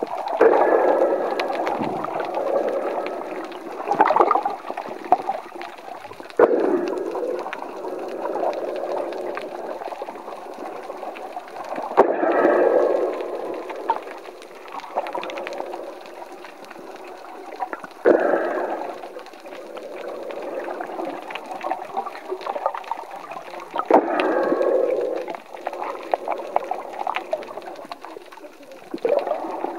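Muffled underwater sound heard from a camera held beneath the surface: water sloshing and gurgling, swelling in a surge about every six seconds.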